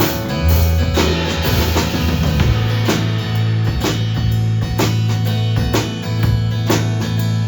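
Live band playing a song: drum kit keeping a steady beat of about one hit a second under sustained bass notes and guitar.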